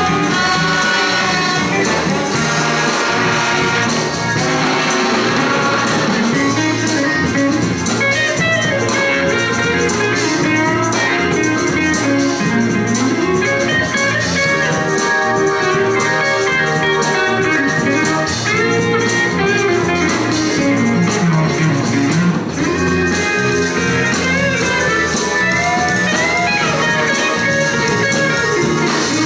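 Big band playing a jazz number live, with electric guitar to the fore over bass, drums and horns.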